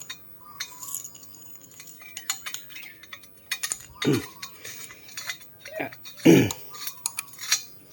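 Irregular metal clicks and clinks of a 17 mm spanner working an exhaust oxygen sensor as it is screwed into its boss on a motorcycle exhaust header pipe. About four and six seconds in there are two short vocal sounds with falling pitch, the second one louder.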